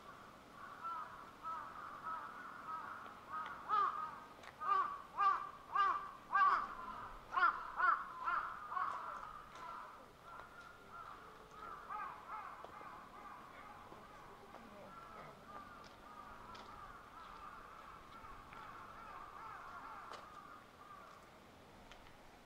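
Crows cawing: a run of about ten loud caws in quick succession through the middle, with fainter caws before and after.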